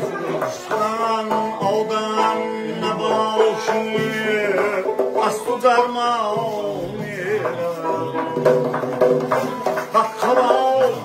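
A long-necked plucked lute with a skin-covered body and a doira frame drum playing a Tajik folk melody, with bending, sliding notes over a steady beat of drum strokes.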